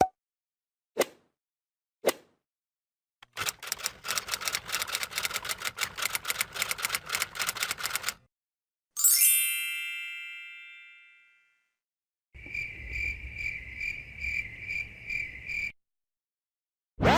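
A string of separate stock sound effects: three sharp single clicks about a second apart, then about five seconds of rapid clicking, then a single bell ding ringing out over about two seconds, then a fast-pulsing high electronic beep, alarm-like, for about three seconds.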